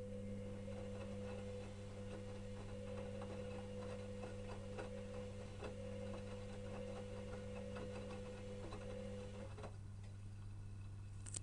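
Electrolux EWS 1045 washing machine tumbling its drum mid-wash: a steady motor hum with light ticking, which stops about nine and a half seconds in as the drum pauses before reversing.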